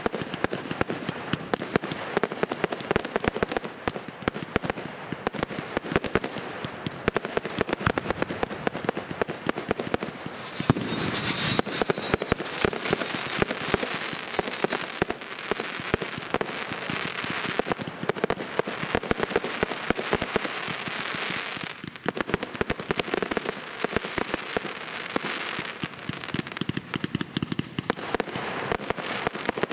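Professional aerial firework display: a rapid, continuous barrage of bursting shells, many sharp bangs a second with crackle between them, growing denser and louder for a couple of seconds about eleven seconds in.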